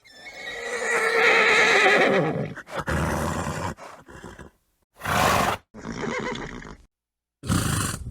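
A horse neighing: one long whinny of about two and a half seconds with a wavering, falling pitch. Then come several shorter sounds, ending in short breathy blasts that are typical of horse snorts.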